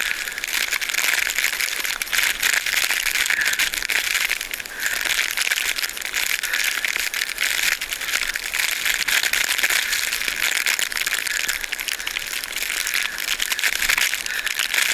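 Steady crackling, rattling noise of blizzard wind and snow on a GoPro Hero 3 carried on foot through deep snow, with a brief dip about four and a half seconds in.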